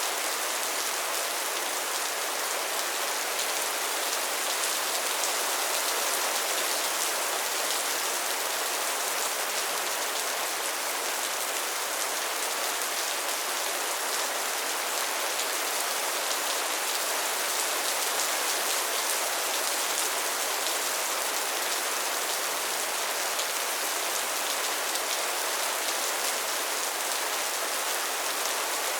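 Steady rain falling, a continuous hiss of drops landing on a surface with fine patter and no thunder.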